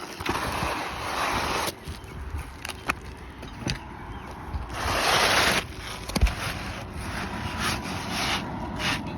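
Asphalt roof shingles being scraped and rubbed during a roof repair: a scraping pass in about the first second and a half, a louder one around the middle, and scattered light knocks and clicks between them.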